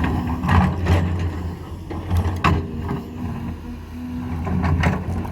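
Cat 320 hydraulic excavator's diesel engine running steadily under load. Several sharp knocks and clanks come from rock being handled and set in place by the bucket.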